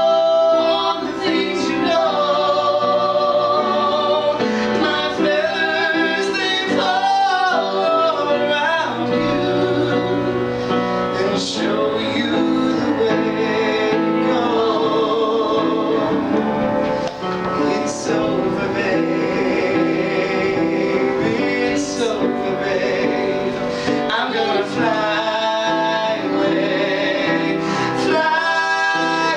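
Music: a song with sung vocals over instrumental accompaniment.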